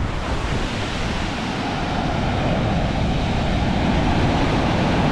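Heavy ocean surf breaking and washing up the beach, with wind buffeting the microphone; the surf is large and rough, stirred up by a passing hurricane. The rush swells slightly toward the end.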